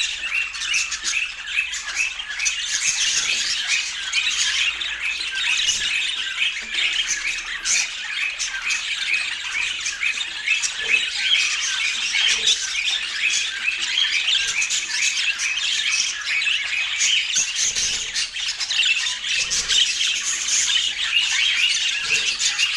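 Budgerigars chattering: a steady stream of short, rapid, overlapping chirping notes from several birds, with no pause.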